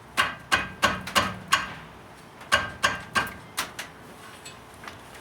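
A run of sharp metallic knocks and clinks, irregular and a few to the second, each ringing briefly: tools and metal brake parts being handled at the caliper. They stop a little before four seconds in, leaving only faint ticks.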